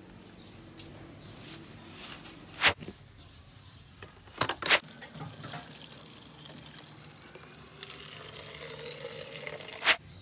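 Water running from the tap of a large earthenware water jar into a plastic drinking bottle, with a pitch that rises as the bottle fills near the end. A few sharp clicks break in.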